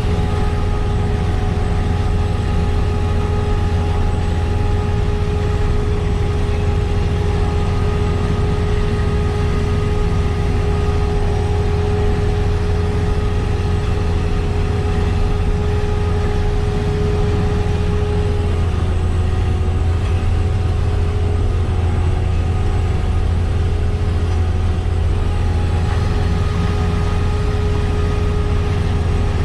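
Diesel engine of sugar beet harvesting machinery running steadily: a constant low drone with a steady whine over it that dips slightly in pitch about two thirds of the way through.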